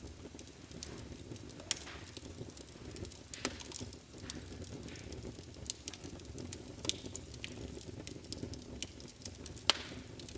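Wood fire burning in a fireplace: a steady low rumble of flames with frequent sharp crackles and pops, two of them louder, one just under two seconds in and one near the end.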